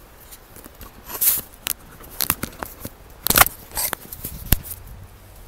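Handling noise from a handheld camera being picked up and moved in close: scattered clicks and short rustles, the loudest about three and a half seconds in, with a sharp click about a second later.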